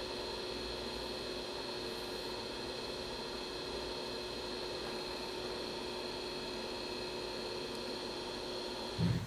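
Steady electrical hum with a faint hiss, unchanging throughout; no distinct sound from the iron on the sponge is heard.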